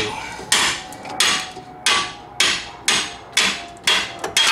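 Steady hammer blows, metal on metal, on a 2010 Nissan Rogue's front suspension: about eight even strikes, a little under two a second, each with a short metallic ring. The hammering knocks the lower control arm's ball joint stud free of the steering knuckle.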